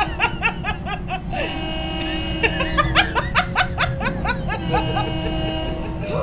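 Commuter train horn heard from inside the passenger car: a steady chord of several notes starting about a second and a half in and held about three seconds, then a brief break and a second long blast near the end. Giggling laughter runs in bursts before and over the first blast.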